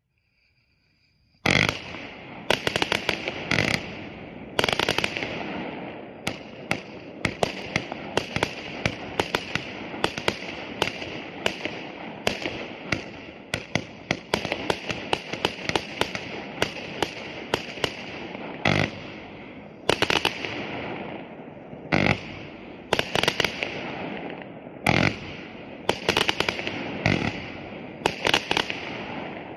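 A 100-shot fan-pattern fireworks cake (Leopard 'No Mercy') firing. About a second and a half in, it starts a rapid, unbroken run of launch thumps and bursting shells with crackle, and it keeps going throughout.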